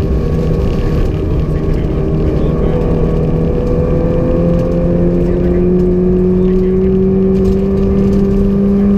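Rally car engine heard from inside the cabin, pulling hard in one gear with its revs climbing steadily for several seconds, over a steady low rumble.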